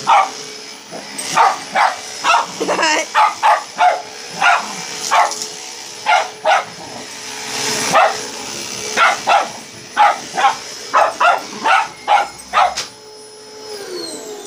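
A dog barks over and over, often in quick runs, at a running upright vacuum cleaner whose steady motor whine sounds underneath. Near the end the vacuum's motor winds down as it is switched off.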